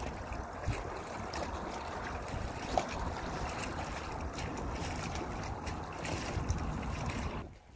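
Wind buffeting the microphone over choppy open water: a steady rushing noise with gusty low rumbles, which drops away suddenly near the end.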